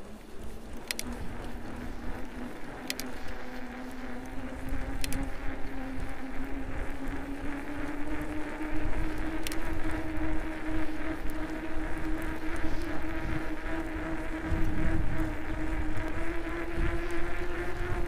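Fat-bike tyres humming on a snowy road: one steady droning tone whose pitch rises slowly as the bike gathers speed, over a low rumble of wind on the microphone.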